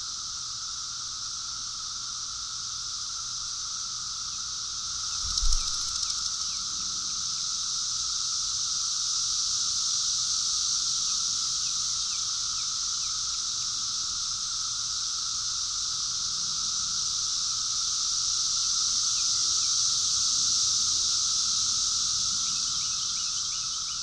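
Chorus of Brood X periodical cicadas (Magicicada): a dense, steady buzzing drone in two layers, a high band over a lower droning band, growing gradually louder. A single thump about five seconds in.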